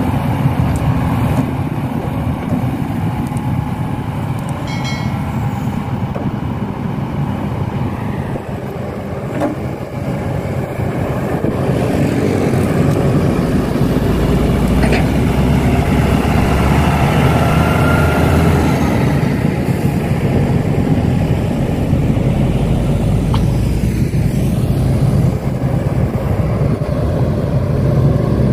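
A vehicle running, a steady low rumble that grows louder about twelve seconds in.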